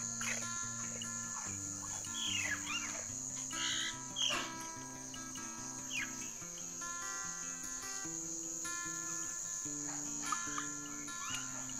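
Steady high-pitched insect drone over background music with a slow-moving bass line, with a few short downward-sweeping chirps.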